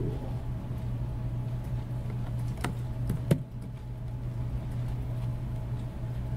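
Steady low background hum of room noise, with two sharp clicks about three seconds in.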